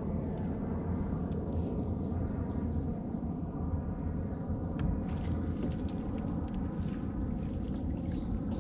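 Steady low rumble of outdoor noise on the water from a kayak, with a faint high hiss. About five seconds in come a few sharp clicks as a spinning rod is cast and its reel engaged, and a short high chirp sounds near the end.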